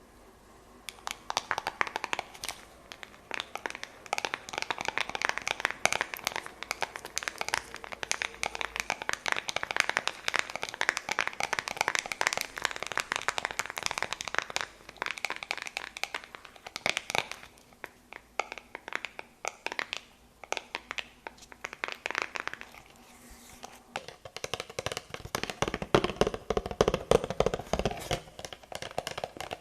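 Close-miked ASMR trigger sounds: fast, crisp tapping and crinkly crackling that starts about a second in and keeps up densely, turning to a softer, lower rustle near the end.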